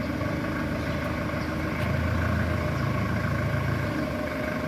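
Heavy diesel engine of a bulldozer running steadily, with its low rumble growing stronger for a couple of seconds in the middle, as under added load.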